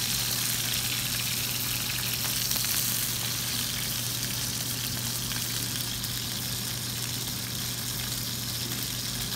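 Chicken breast frying in hot oil in a stainless skillet: a steady sizzling hiss with fine crackles, over a steady low hum.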